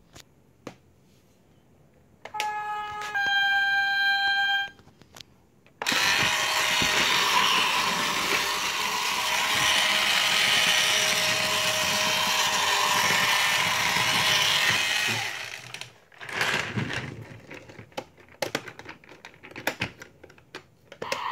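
Motorized toy subway car: two short electronic chime tones a couple of seconds in, then its small electric motor running steadily for about ten seconds as it rolls across a wooden floor. Near the end come scattered clicks and knocks as the toy is handled.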